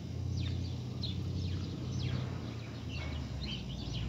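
Small birds calling: a series of quick chirps that slide sharply downward in pitch, repeated every half second or so, over a steady low rumble.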